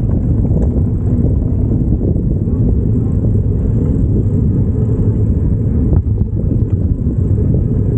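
Steady low rumble of street traffic and road noise, heard from a bicycle being ridden through the city.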